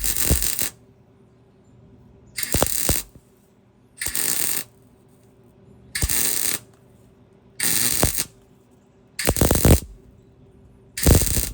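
MIG welder laying short stitch welds on exhaust pipe: seven bursts of about half a second each, roughly every one and a half seconds, with a faint steady hum between them.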